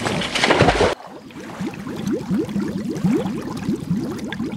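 Music and voice cut off abruptly about a second in. Then comes water gurgling and bubbling, a quick run of short rising bubbly notes, several a second.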